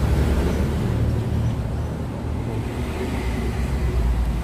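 Steady low background rumble, like road traffic, with no distinct knocks or clicks.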